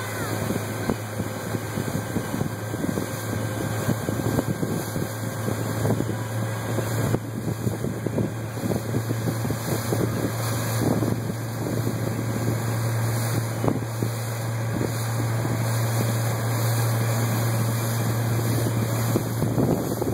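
Motorboat engine running steadily at towing speed, a low drone heard from aboard, with wind buffeting the microphone and the churn of the boat's wake.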